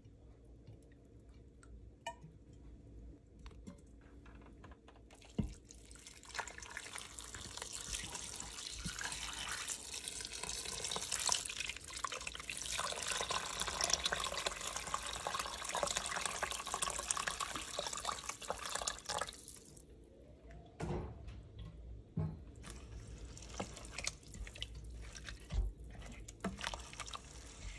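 Water poured in a steady stream into a stainless steel Instant Pot inner pot full of lentils and chopped vegetables. It runs for about fourteen seconds, strongest near the middle, and stops suddenly. Afterwards come scattered knocks and scrapes as a spatula stirs the pot.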